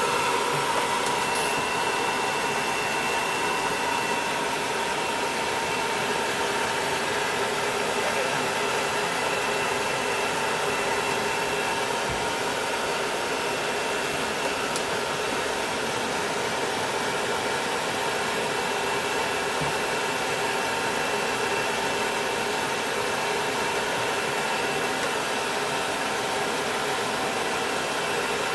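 Hair dryer blowing on a dog's coat: a steady rushing whir with a faint constant whine, running without a break.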